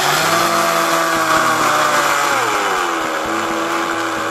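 A 775 DC motor drives a 3D-printed dual impeller pump, running with a steady whine over a hiss of spraying, splashing water. The whine drops to a lower pitch about two seconds in and then holds while the pump shoots a jet of water.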